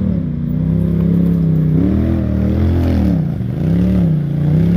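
Polaris RZR side-by-side engine revving up and down in several blips as the machine crawls up rocky ledges under load.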